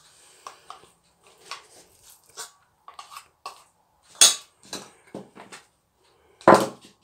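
A metal spoon clinking against a stainless steel mixing bowl while plastic containers are handled and set down on a table: a series of scattered clinks and knocks. The loudest come about four seconds in and just before the end.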